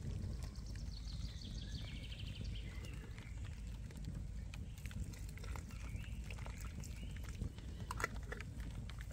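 Forest ambience: small birds singing in thin repeated trills over a steady low rumble, with a few sharp clicks about eight seconds in.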